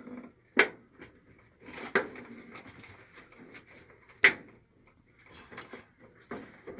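Clicks and knocks of tools and metal panels being handled while the dryer is reassembled: three sharp knocks about half a second, two seconds and four seconds in, with lighter clatter between.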